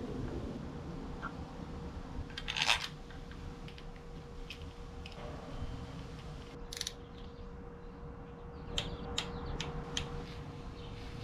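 Hands working on small metal engine parts: a short rasping scrape about two and a half seconds in, then scattered light clicks and taps of metal, over a faint steady hum.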